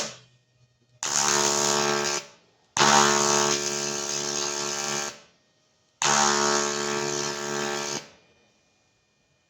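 AC TIG welding arc on aluminium buzzing in three bursts of about one to two and a half seconds each, each starting and cutting off sharply as the arc is struck and broken.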